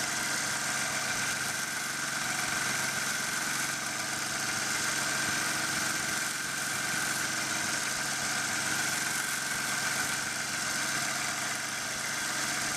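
WEN 1x30 belt sander running steadily with a nonwoven conditioning belt, finishing small steel ratchet parts, with a constant high motor whine over the belt noise.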